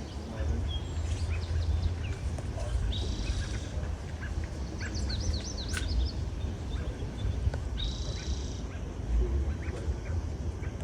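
Birds chirping and calling in short bursts, a few of them buzzy, over a low, steady rumble.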